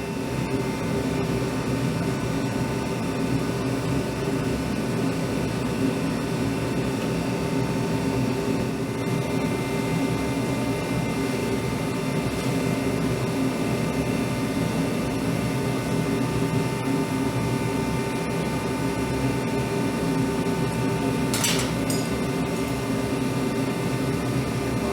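Steady mechanical drone of workshop equipment running during hot forging of steel coins, with a single short click about twenty-one seconds in.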